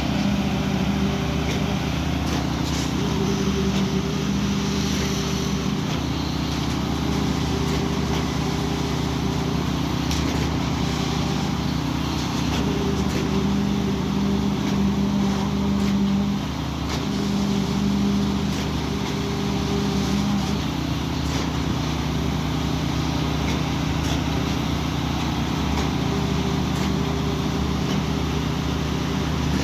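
A concrete pump truck's diesel engine running steadily while pumping, with a deeper hum that comes and goes every few seconds.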